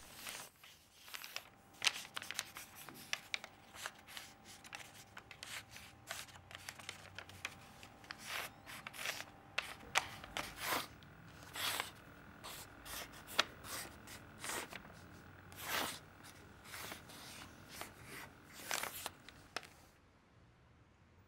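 Quick, uneven scraping and snipping strokes of hands working hard at something, some sharp and louder than others. They stop abruptly near the end.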